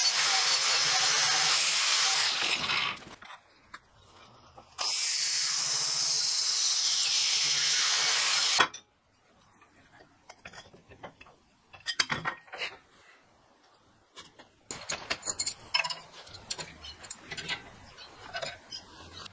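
Angle grinder grinding a steel flat bar in two runs: the first winds down about three seconds in, the second starts about five seconds in and cuts off suddenly near nine seconds. After that come scattered clinks and taps of steel pieces, flat bar and rebar, being handled.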